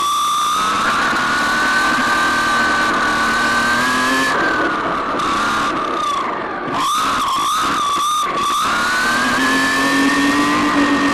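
RC car's motor whining as it is driven hard, the pitch climbing steadily under full throttle, dropping about four seconds in, pulsing on and off through a stretch of quick throttle changes, then climbing again near the end.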